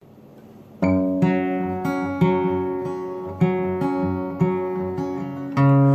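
Acoustic guitar playing the intro to a country song: chords strummed or picked one at a time, each ringing out before the next, starting about a second in.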